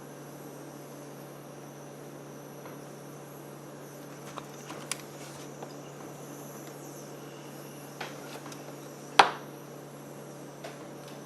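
Handling of a small part at a workbench: a few faint ticks and one sharp click about nine seconds in, over a steady low hum.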